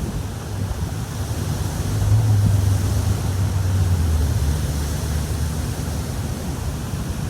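Strong wind buffeting the microphone: a steady low rumble that swells from about two seconds in and eases off later.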